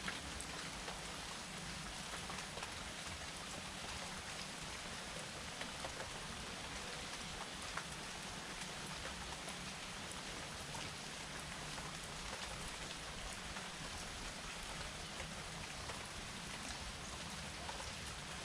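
Steady rain falling, an even hiss with many small drops ticking on a surface.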